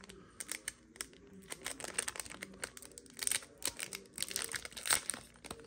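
Plastic-foil wrapper of a trading-card booster pack crinkling and tearing as it is ripped open by hand. It is a continuous run of sharp crackles, louder about three and five seconds in.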